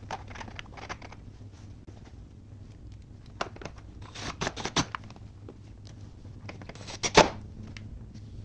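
Clicks, knocks and scraping of gloved hands and tools fitting parts back into a car's engine bay, in a cluster about four seconds in, with a sharp clack about seven seconds in.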